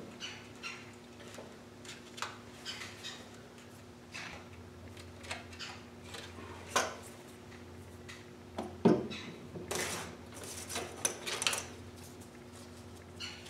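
Light clicks and taps of small wooden strips and hand tools being handled on a wooden workbench, with a louder knock about nine seconds in and a quick run of clicks just after. A faint steady hum sits underneath.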